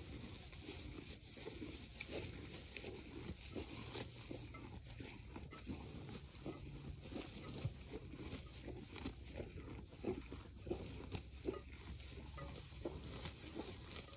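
Hand milking of a Jersey cow: streams of milk squirting into a stainless steel bowl of milk in a steady rhythm, about two to three squirts a second.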